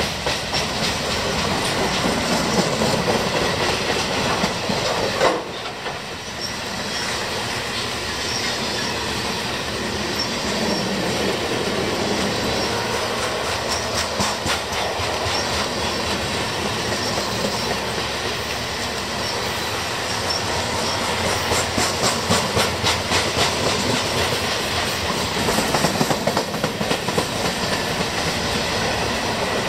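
Freight train cars rolling past: a steady rumble and rattle of steel wheels on rail, with spells of rhythmic clicking as the wheels cross rail joints. The sound dips briefly about five seconds in.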